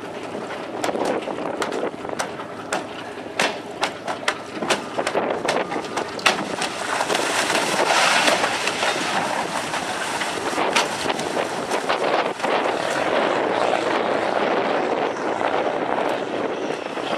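A lobster boat's engine running hard with water churning as it strains on a tow rope to pull a grounded boat off the shore, with wind buffeting the microphone. Sharp crackles come through the first half, and the rush grows louder about seven seconds in.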